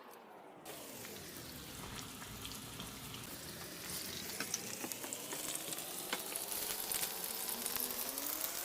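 Sliced garlic sizzling in hot oil in a frying pan, a steady hiss scattered with small crackles and pops. It gets louder a little under a second in and keeps building slowly.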